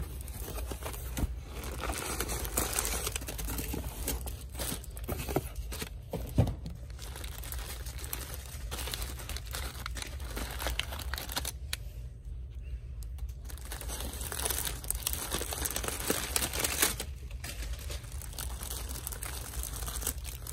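Brown kraft packing paper and plastic wrap crinkling and rustling as items are lifted out of a shipping box. There is a light knock about six seconds in and a brief lull a little past the middle.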